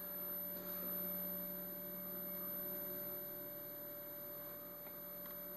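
Low, steady electrical mains hum from bench electronics, with a fainter higher tone above it.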